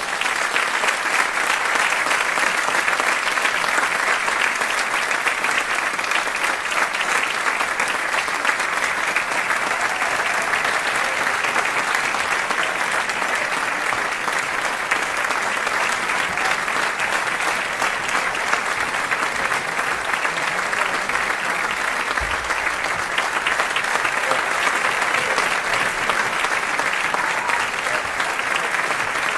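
Steady applause from many people clapping.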